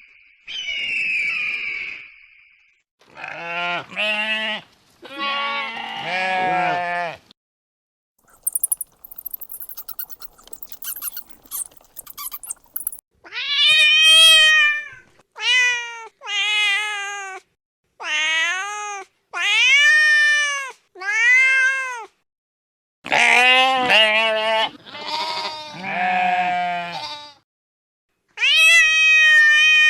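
A string of separate animal calls, most of them cat meows, each about half a second to a second long with a pitch that rises and falls. A short stretch of high squeaking comes in between.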